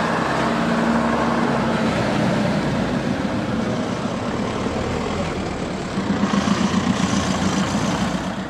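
Vintage double-decker bus's diesel engine running as it pulls past and drives off down the road. About six seconds in, a car coming the other way passes close, adding a louder pulsing engine note and tyre noise.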